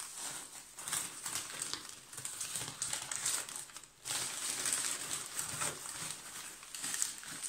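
Crumpled newspaper packing rustling and crinkling as hands pull it out of a cardboard box, with a short pause about halfway through.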